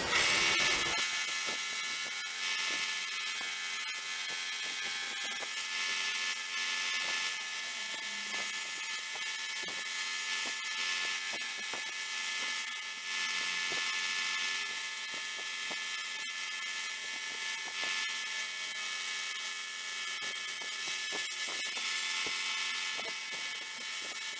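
Belt sander running with the steel blade of a Millers Falls No. 852 screwdriver held against the abrasive belt: a steady high grinding hiss with small scattered clicks, as pitting and a burned spot are ground out of the blade.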